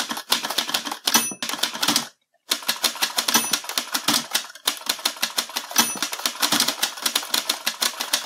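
Rapid, even clicking, about ten clicks a second, in runs. It breaks off briefly about two seconds in, with a shorter dip near the middle. A faint high ding sounds three times.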